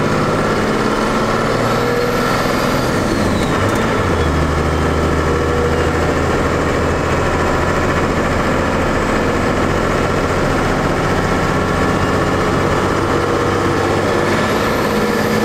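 12-valve Cummins straight-six diesel with compound turbochargers pulling hard under acceleration, heard from inside the cab. The big turbo's whistle rises and falls twice, once early and again near the end, and the engine note changes about four seconds in with a gear change.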